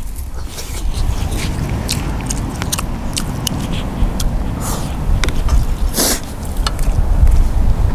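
Close-miked mouth sounds of eating crisp pan-grilled mackerel and rice: many short wet clicks and crunches of chewing, with a louder crackle about six seconds in, over a steady low rumble.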